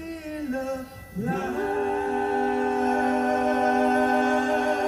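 Live concert singing: a short sung phrase, then about a second in the singer slides up into one long held note that carries on steadily.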